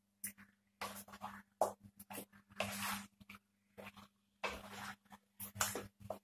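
Wooden spatula scraping and stirring chicken pieces and powdered spices against a nonstick pan, in irregular strokes.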